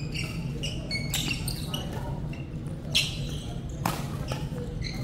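A badminton rally: a few sharp racket strikes on the shuttlecock, the loudest about three seconds in, with short sneaker squeaks on the wooden court floor. Under it runs a steady low hum.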